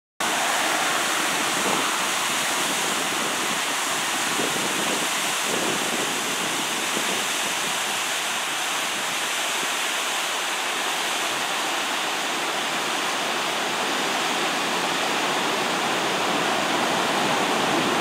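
Water pouring over a stone dam spillway, a steady, even rush.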